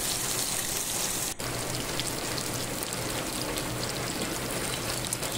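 Chicken drumsticks shallow-frying in hot oil in a frying pan: a steady crackling sizzle, with a brief drop about a second and a half in.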